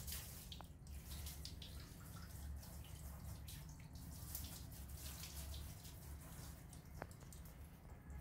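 Water from a thin hose splashing and dripping onto a wet cat and a tiled bathroom floor, in many small uneven splashes, over a low steady hum.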